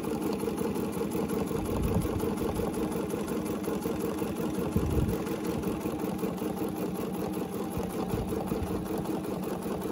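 Bernina domestic sewing machine running steadily, free-motion stitching ruler work along a spiral quilting template, with a couple of soft low knocks about two and five seconds in.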